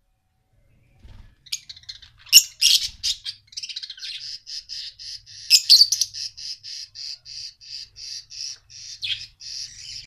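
Caged cockatiels and budgerigars calling: high chirps starting about a second in, loud squawks twice, then a steady run of short repeated chirps about three a second.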